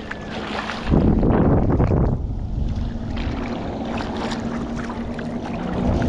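Wind on the microphone over water sloshing and splashing in the shallows around a released shark, with a louder rush of water about a second in that lasts about a second. A steady low hum runs under the second half.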